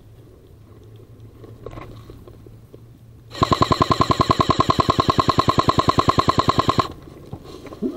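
Airsoft rifle firing one sustained full-auto burst of about three and a half seconds, starting a little past three seconds in, at roughly ten shots a second.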